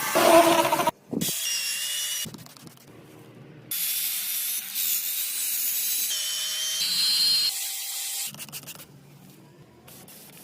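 Power tools working on metal in short clips cut together: a grinding whine over scraping, rubbing noise that starts and stops abruptly several times, dropping to quieter work for the last two seconds.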